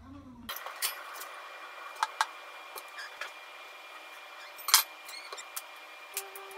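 Kitchen knife cutting a whole avocado on a wooden cutting board, with scattered light clicks and taps of the blade and one sharp knock about three-quarters of the way through. A soft musical note comes in near the end.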